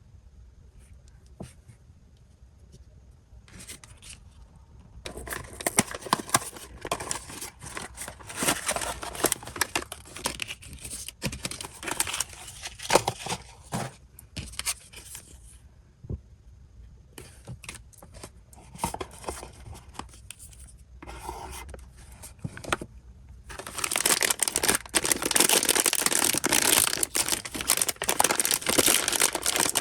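Blind-box packaging being torn open and crinkled by hand: quiet for the first few seconds, then bouts of tearing and crackling, ending in a long, loud stretch of steady tearing and crinkling.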